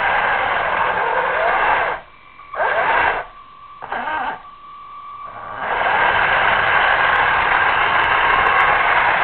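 Hiss and crackle of an analog FPV camera's radio audio link, with a faint whine rising and falling in pitch. About two seconds in, the signal drops out in several short gaps, leaving a thin steady tone, before the hiss returns near six seconds.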